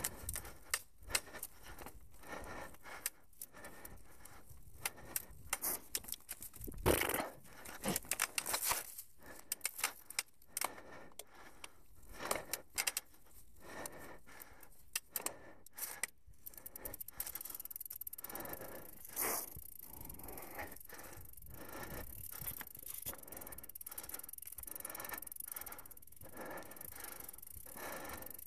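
Mountain bike riding over a leaf-covered dirt singletrack: irregular clicks, rattles and scrapes from the bike and the tyres on leaves and roots. The clicks come thickest in the first half, then give way to a more even rushing noise with fewer clicks.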